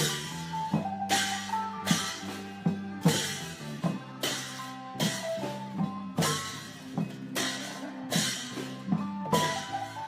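Isan klong yao long-drum ensemble playing a steady rhythmic beat. Cymbals crash about once a second over the ringing drums, and a faint melody runs underneath.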